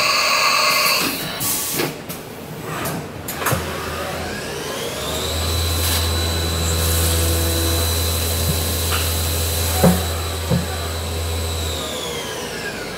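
Hurco VMX 24 vertical machining centre at work. Its swing-arm tool changer swaps a tool with a loud hiss for about the first second, then a few clicks. About four seconds in the spindle winds up with a rising whine and runs steady with a low hum beneath while milling a block under flood coolant, then winds down near the end.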